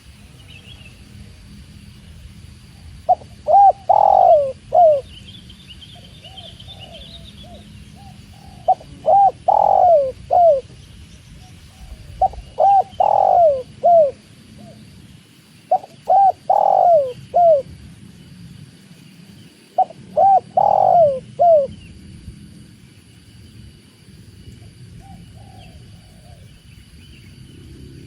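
Spotted dove (tekukur) singing its cooing song: five loud phrases of a few falling coos each, repeated about every four seconds, with softer coos in between and near the end.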